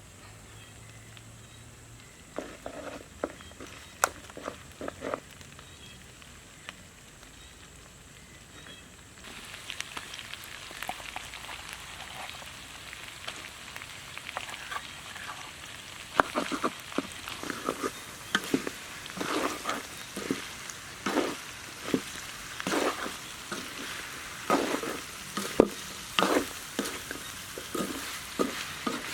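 Food frying and sizzling in a pan, with a utensil repeatedly scraping and knocking against the pan as it is stirred. The sizzle comes in about a third of the way through, after a few scattered knocks, and the stirring strokes grow busier after that.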